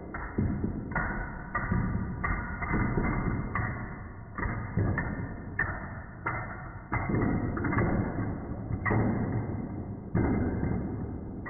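Padlocks being set down one after another on a table: an irregular series of knocks, roughly one a second, each dying away quickly.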